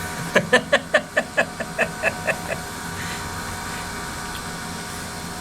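A person laughing: a run of about ten quick 'ha' pulses that fade out over about two seconds, over a steady low hum.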